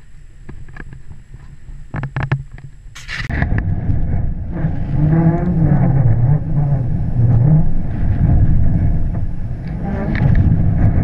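Wind rushing over a GoPro mounted on a flying kitesurfing kite: a loud, steady low rumble that sets in about three seconds in, after a quieter stretch with a few clicks.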